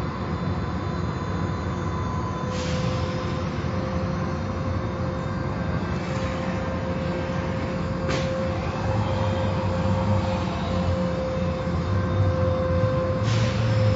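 Automatic car wash machinery running: a steady low rumble with a constant motor hum, and a few short bursts of hiss.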